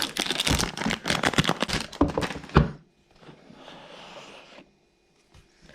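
Cube packaging being wrestled open: a dense run of crinkling and crackling for about two and a half seconds, then a softer sliding rustle, then it goes quiet.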